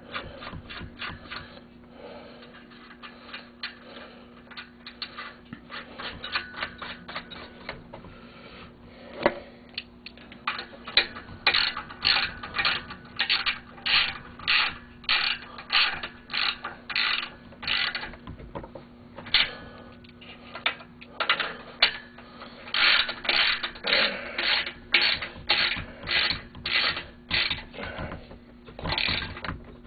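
Ratchet wrench clicking in short back-and-forth strokes, about two a second, turning fasteners during an engine rebuild. It grows louder and more regular about a third of the way in, over a faint steady hum.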